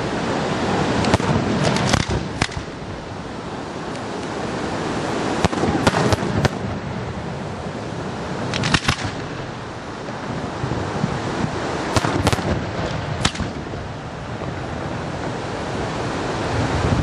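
Aerial firework shells bursting: about ten sharp bangs at irregular intervals, some in quick pairs, over a steady rushing noise.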